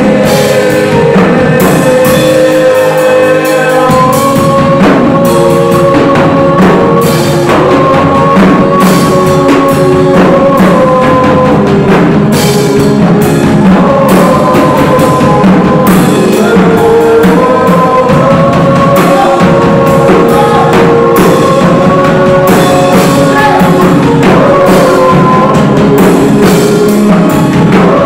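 Live Christian worship music: a man singing into a microphone over a drum kit and keyboard, loud through the PA.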